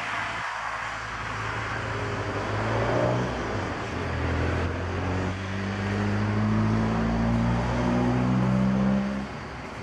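A car engine running, its pitch and loudness rising and falling in steps several times, then dropping away sharply about nine seconds in.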